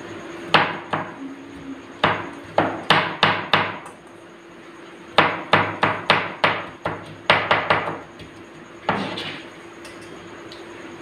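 Kitchen knife chopping an onion on a plastic cutting board: sharp knocks in quick runs, about three a second, with short pauses between runs.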